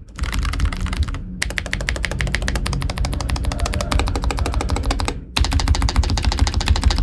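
Fast, continuous typing on a Keychron K3 Ultra 8K low-profile mechanical keyboard with Banana switches and low-profile PBT keycaps: a rapid stream of key clacks. It breaks off briefly about a second in and again just after five seconds.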